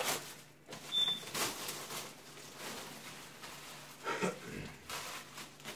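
Plastic stretch wrap crinkling and rustling in several separate pulls as it is stripped off a tower speaker, with a brief high squeak about a second in.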